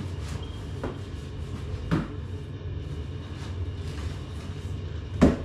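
A steady low hum with two thumps, one about two seconds in and a louder one near the end.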